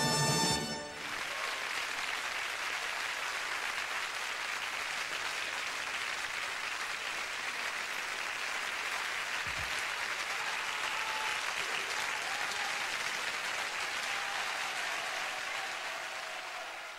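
A live rock band's final chord cuts off under a second in, followed by a studio audience applauding steadily, which fades near the end.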